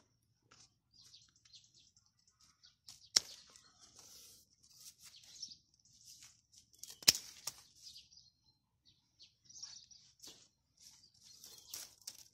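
Dry leaf litter and twigs crackling and rustling under gloved hands, with two sharp snaps, one about three seconds in and a louder one about seven seconds in.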